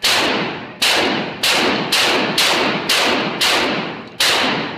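Shotgun fired rapidly, eight shots about half a second apart with slightly longer gaps at the start and end. Each shot echoes under a roof between timber walls and dies away into the next.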